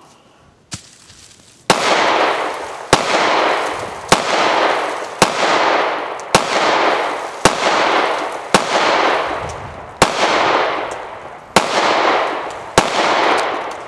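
Glock 30S .45 ACP semi-automatic pistol fired about ten times in a steady string, roughly a shot a second with a couple of slightly longer pauses near the end; each shot is followed by a long echo fading out.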